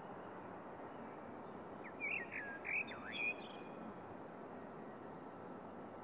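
Faint outdoor ambience: a steady low background hiss, with a few short chirping bird calls about two seconds in, then a thin, high steady tone in the last second or so.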